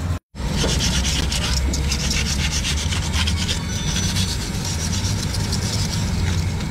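Diesel engine running steadily: a continuous low hum with a harsh, rasping clatter on top. The sound drops out completely for a moment just after the start.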